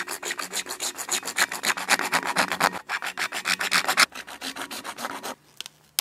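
Small wood saw of a Victorinox Swisstool Spirit XBS multitool sawing through a plastic pipe in quick, even back-and-forth strokes. The sawing stops about five seconds in, as the pipe is cut through.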